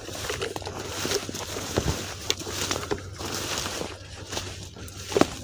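Rustling and footsteps of someone moving about in grass, with a few sharp knocks and clicks.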